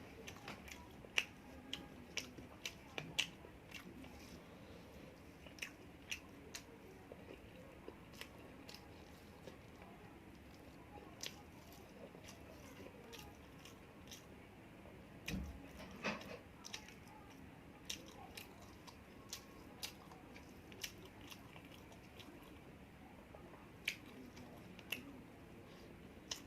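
Close-miked chewing and eating: sharp, wet mouth clicks at irregular intervals, with one louder, fuller sound about halfway through.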